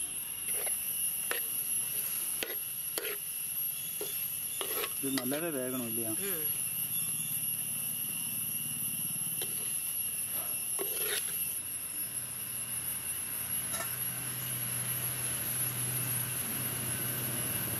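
Steel ladle clicking and scraping against a clay pot as shallots and dried red chillies are stirred in it, over a steady high buzz of crickets. A short wavering call comes about five seconds in, and a low hum rises in the last few seconds.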